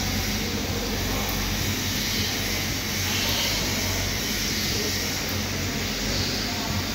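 Steady machine noise: an even hiss over a low mains-frequency hum that holds unchanged throughout.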